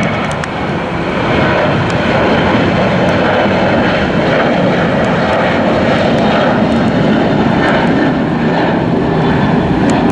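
Air China Boeing 737-700's CFM56 turbofans at takeoff thrust, a loud, steady jet noise as the airliner climbs away just after liftoff.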